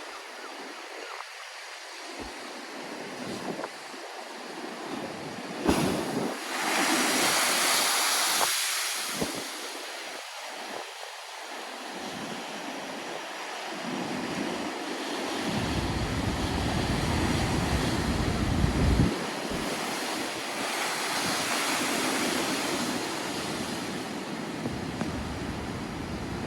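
Storm waves breaking and washing. A sudden thud about six seconds in is followed by a loud rushing wash lasting about three seconds, and another swell of wash comes later. Wind rumbles on the microphone through the second half.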